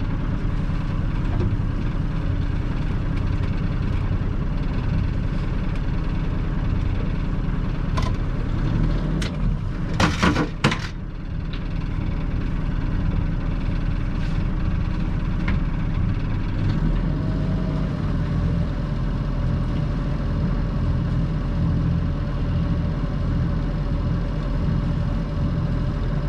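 A sailboat's auxiliary engine running steadily at low revs while the boat is manoeuvred into its slip. There is a brief clatter of knocks about ten seconds in, and the engine note shifts slightly after about seventeen seconds.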